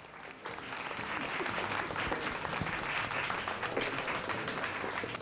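A group of people clapping and applauding, the applause starting within the first half-second and holding steady.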